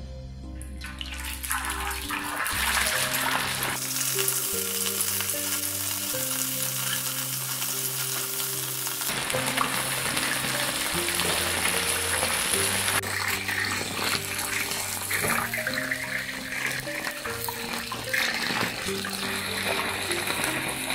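Small whole river fish deep-frying in hot oil in a wok, a loud steady sizzle that builds up over the first second or two, with background music underneath.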